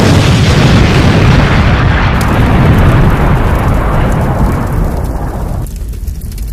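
Explosion sound effect: a sudden loud blast, then a long noisy tail that fades over about five seconds, leaving a deep low rumble.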